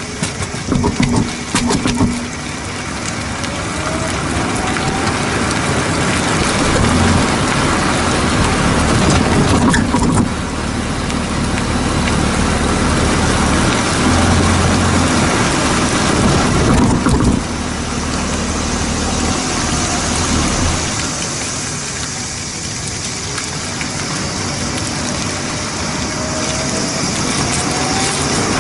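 Tyre and road noise with wind rushing past a camera mounted under a moving car, beside the rear wheel, as the car drives along. A steady rushing noise, with a few knocks near the start.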